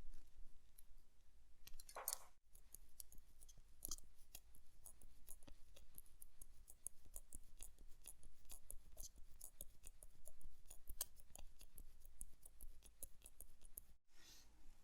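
Small, sharp metallic clicks and ticks of tweezers and tools handling parts of an Orient caliber 4694 watch movement during assembly, scattered irregularly throughout, with a brief hiss about two seconds in and again near the end.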